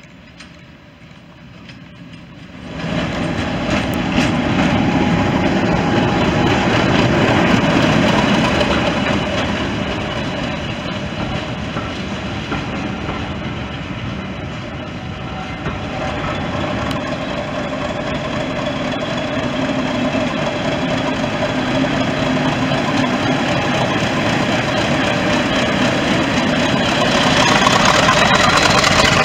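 British Rail Class 50 diesel locomotive's English Electric V16 engine running as its train of carriages passes close by. The sound rises sharply about three seconds in and gets louder again near the end as the locomotive comes alongside.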